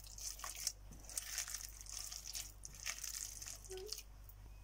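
A hand mixing sliced onions into a thick flour batter in a glass bowl: faint, irregular wet squishing and crinkling with small clicks.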